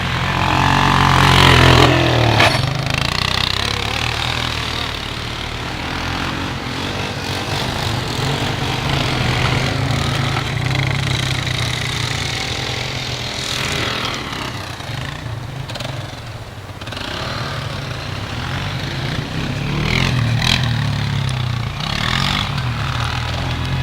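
Small ATV engine running, with the throttle opened up a few times so it revs and settles back.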